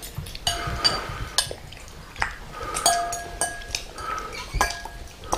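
Metal fork clinking and scraping against a glass bowl as a toddler stirs and stabs at spaghetti: a string of about ten irregular clinks, several of them ringing briefly.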